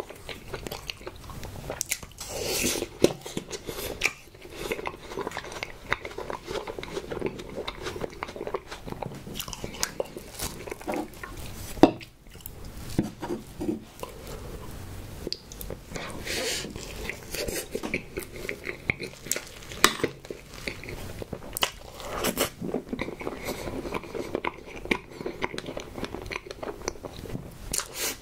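A person biting, crunching and chewing soft strawberry sweets, with wet, sticky eating sounds, and a single sharp click about halfway through.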